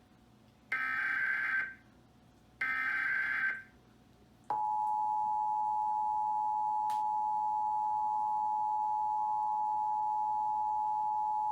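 Emergency Alert System test signal: two more one-second bursts of screechy SAME digital header data, then the steady two-tone EAS attention signal (853 and 960 Hz) starting about four and a half seconds in and holding.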